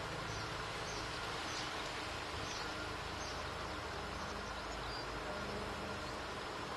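Steady outdoor background hiss with a faint high chirp repeating about three times every two seconds, dying away about five seconds in.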